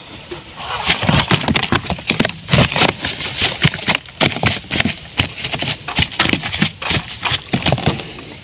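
A freshly caught crucian carp flopping in a woven plastic sack, making rapid, irregular slaps and rustles that start about a second in.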